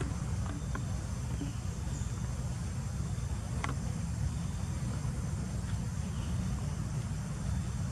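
Outdoor forest ambience: a steady low rumble with faint, high insect buzzing and a few soft clicks, one sharper about four seconds in.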